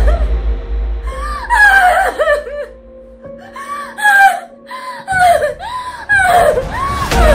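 A woman's high wailing cries, in repeated rising-and-falling glides, over dramatic music. A deep bass drops out in the middle, where a low note is held, and returns near the end.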